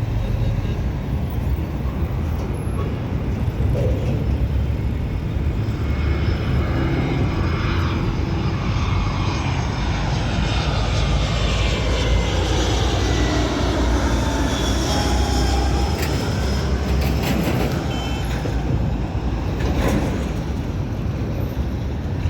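Jet airliner passing low overhead on its landing approach, its engine noise sweeping in pitch as it goes by near the middle, over a steady low rumble.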